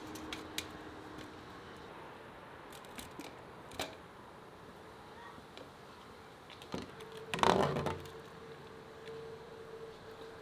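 Perforated metal skimmer clicking against a steel tray and pot as boiled eggplants are lifted out and set down, with a few scattered taps and one louder wet clatter about three-quarters of the way through as eggplants drop onto the tray.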